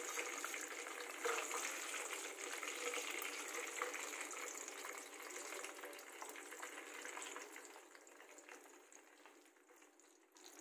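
Hot oil sizzling and crackling as breaded bread rolls deep-fry in a pan, with a couple of light clicks early on. The sizzle dies down over the last few seconds as the rolls are lifted out of the oil.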